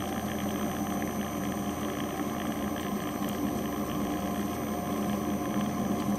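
RHINO nut grinder's motor running steadily while grinding peanuts and dispensing peanut butter: an even motor hum under a constant grinding rasp.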